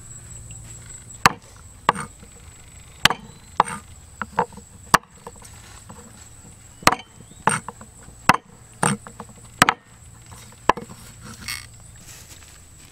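Chopping: about a dozen sharp strikes of a blade into wood at an uneven pace, roughly one a second.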